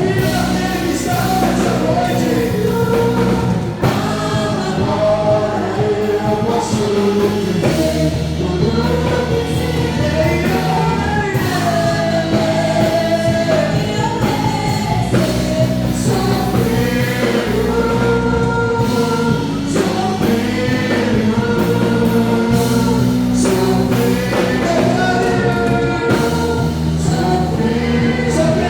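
Gospel worship song: a praise band playing, with voices singing long held notes over the accompaniment.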